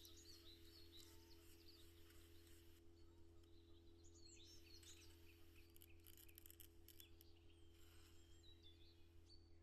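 Near silence: a steady low hum with faint bird chirps in short clusters, and a few light clicks about six to seven seconds in.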